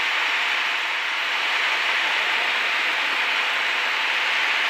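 Steady rushing cabin noise inside a Cessna 152 on final approach to land, engine and airflow blending into an even hiss with no distinct engine note.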